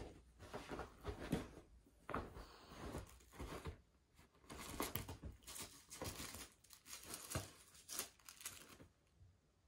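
Bedsheets rustling and swishing in quick irregular bursts as a feather toy on a cord is dragged under the covers and the cats pounce and scrabble on it, dying away near the end.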